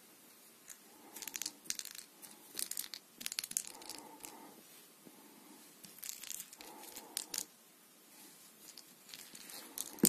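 Short bursts of scratchy rustling and crackling as a twine-wrapped toy ball is rubbed and rolled over a carpet, coming in several separate bouts.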